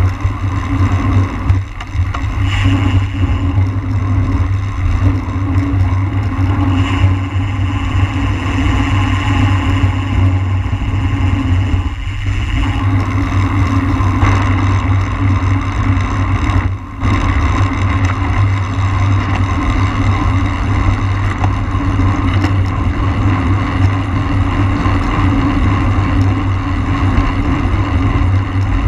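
Wind rushing over the microphone of a camera carried on a road racing bike at race speed: a loud, steady rush with a constant hum underneath. It dips briefly once, past the middle.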